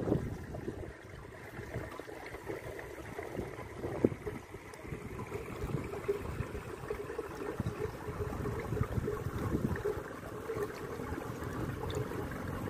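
Water trickling, mixed with an uneven low rumble.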